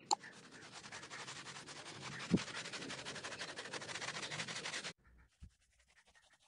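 Paintbrush bristles scrubbing paint onto a rough plastered wall, a soft, steady scratchy rubbing with one light knock about two seconds in. The rubbing stops about five seconds in.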